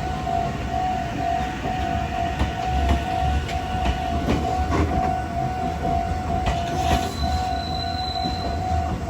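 Japanese level-crossing warning bell ringing in a steady repeated pulse while a Meitetsu Inuyama Line train runs past, its wheels rumbling and knocking over the rail joints. A brief high whine comes in near the end.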